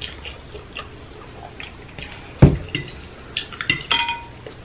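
Metal fork knocking and clinking against a glass baking dish while stirring and twirling noodles. There is a loud low thump about halfway through and a quick run of ringing clinks a little later.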